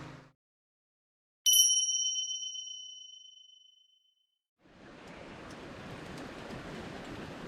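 A single bright metallic ding, like a small bell or chime, struck once and fading away over about two seconds in otherwise dead silence. About two-thirds of the way in, a steady soft rushing noise fades in.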